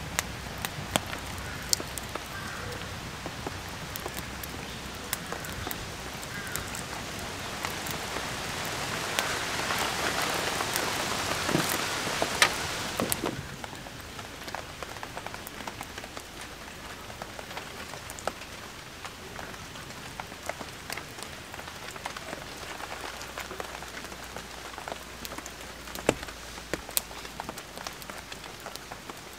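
Steady rain falling, with many separate drops hitting close by. It swells louder for a few seconds about a third of the way in, then drops suddenly to a lighter, even level.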